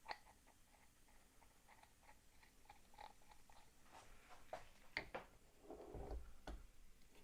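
Faint clicks and taps of small pipe fittings being handled and threaded together, with two sharper clicks about five seconds in and a short low rustle and thump near six seconds.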